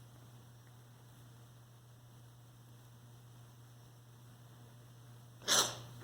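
A steady low hum, then about five and a half seconds in a single short, sharp sneeze.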